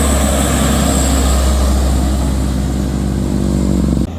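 Diesel truck engine labouring up a steep grade under a heavy load, its note climbing in pitch near the end before the sound cuts off abruptly.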